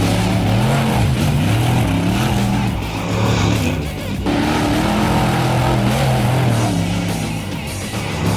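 Off-road race vehicle's engine revving up and down again and again at speed, with music playing under it.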